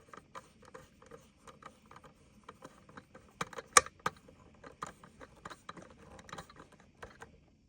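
Screwdriver working a small terminal screw on the alarm wiring: a run of light, irregular clicks and ticks, a few a second, with two sharper clicks a little over three seconds in. The clicking stops near the end.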